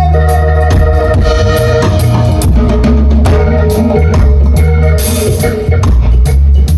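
Live roots reggae band playing: organ chords over deep bass and a drum kit.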